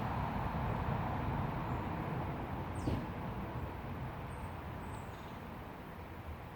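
Crumlin River flowing through the glen: a steady rushing of water that eases slightly in level, with a few faint high chirps around the middle.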